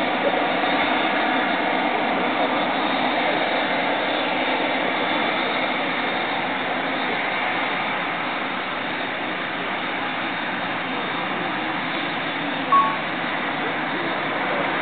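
Boeing 747-8 Intercontinental's four GEnx-2B turbofan engines running steadily, heard at a distance as an even rumbling hiss. A short high beep sounds once, about 13 seconds in.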